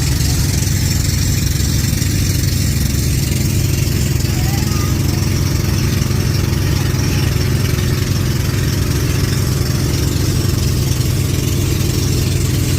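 An engine running steadily at a constant speed, a low even drone with a steady hiss over it.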